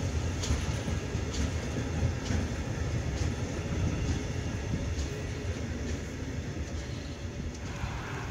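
Freight train of tank wagons rolling past with a low rumble, the wheels clicking over the rail joints about once a second. The sound slowly fades as the last wagons go by.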